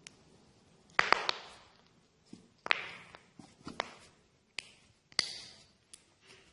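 Knuckles cracking: a series of sharp pops, a quick cluster of three about a second in, then single pops roughly a second apart.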